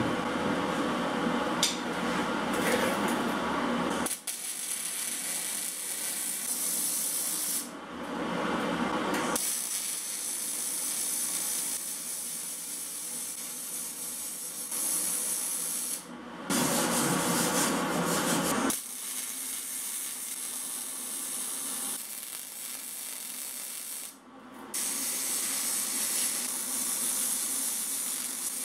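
Fronius MIG/MAG welder's arc crackling and hissing as it lays beads on steel sheet-metal hull seams. The welding starts about four seconds in and stops briefly twice, near the middle and about two-thirds of the way through, as the torch trigger is released between beads.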